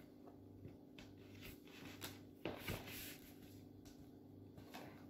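Faint soft clicks and rustles of playing cards being handled and laid on a table, a few scattered taps with the strongest about halfway through, over a faint steady hum.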